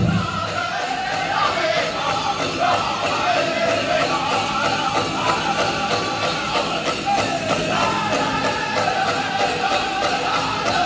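Powwow drum group singing a chicken dance song in high voices. A last heavy drumbeat lands at the very start, then the drum drops to soft, light strokes under the singing.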